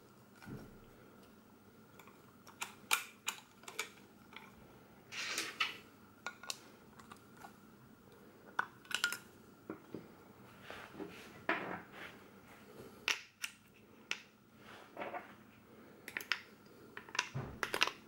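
Scattered clicks, taps and short scrapes of hands handling a Bell & Howell 8429 Super 8 camera: its metal folding grip swung out, the battery compartment cover taken off, and AA batteries pushed into the compartment near the end.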